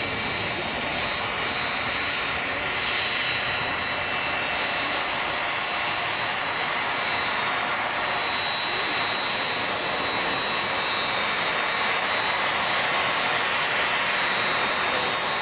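Boeing 747-400 freighter's four turbofan engines running steadily: a continuous jet rush with a high fan whine on top, growing slightly louder through the second half.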